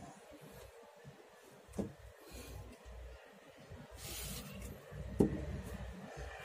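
A short hiss of WD-40 sprayed from an aerosol can, about half a second long, about four seconds in. There is a light knock near two seconds and a sharp knock, the loudest sound, just after five seconds.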